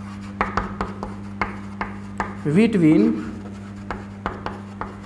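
Chalk writing on a blackboard: a quick run of short taps and scrapes as letters are written.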